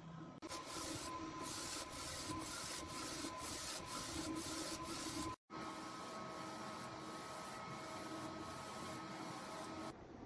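UV DTF inkjet printer running a print job, its printhead carriage shuttling with a regular stroke about twice a second. It cuts out for a moment about halfway, then goes on quieter and steadier with a faint hum.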